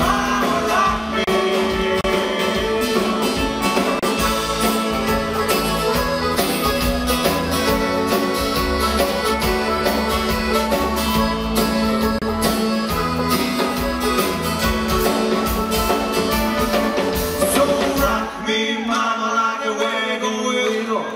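Bluegrass-style country music with guitar, played by a band. About eighteen seconds in, the bass and low instruments drop out, leaving a thinner, higher part.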